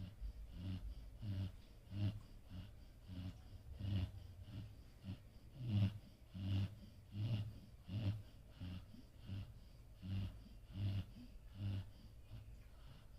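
A sleeping dog snoring: one short snore with each breath, about three breaths every two seconds.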